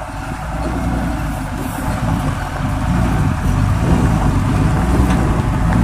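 Diesel engine of a heavily loaded multi-axle Tata truck running as the truck pulls past close by, a steady low rumble that grows louder toward the end.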